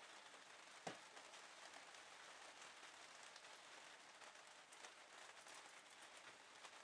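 Near silence with a steady hiss, broken by faint scattered ticks of a blue tit's beak pecking at a millet spray, and one sharper click about a second in.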